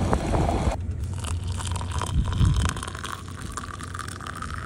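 Water boiling in a camp pot, then hot water poured from the pot into a mug, splashing and foaming, from about a second in. A gusty low rumble of wind on the microphone runs underneath.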